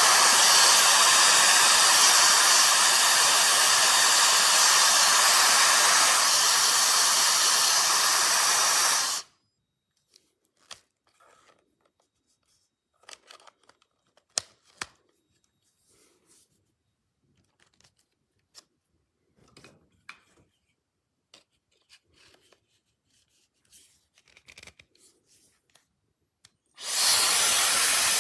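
Hot air brush (hair dryer brush) blowing: a steady rush of air with a faint high motor whine, cut off suddenly about nine seconds in. Then small clicks and handling knocks, and near the end the blower starts up again.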